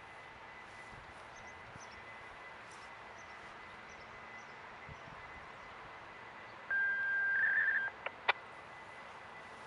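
Quiet outdoor background, then about two-thirds of the way in a steady electronic beep tone lasting about a second, with a second higher tone joining it briefly, followed by two sharp clicks.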